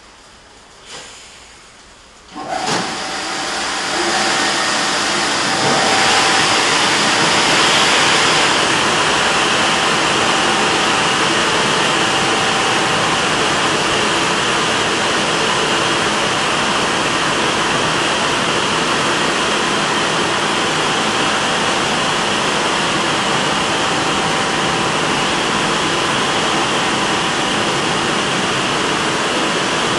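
Washtec SoftWash rollover car wash gantry running over a car: after a light knock about a second in, a loud steady rushing hiss starts suddenly about two seconds in, grows louder in two steps over the next few seconds, then holds steady with a faint even whine under it.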